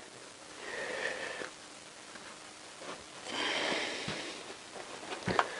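Two soft breaths through the nose close to the microphone, then a short click near the end.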